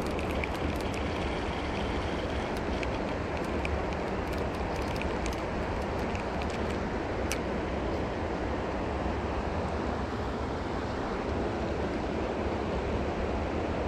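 Steady noise of flowing river water and wind on the microphone, with a low rumble, and a few faint ticks scattered through it.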